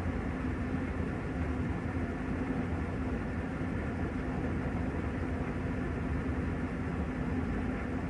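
Panasonic top-loading washing machine with its wash basket spinning at speed: a steady whir with a constant hum over a low rumble.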